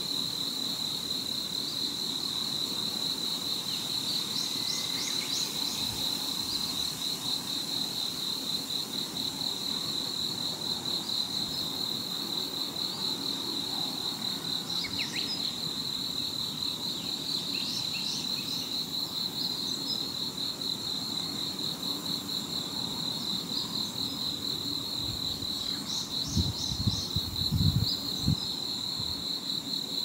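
An insect trilling steadily in a fast, unbroken, high-pitched pulse, with a few short bird chirps above it. A brief run of low thumps comes about four seconds before the end.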